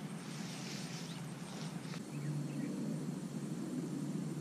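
Soft rustling of clothing as a small child's jacket is pulled off, over a steady low outdoor background rumble.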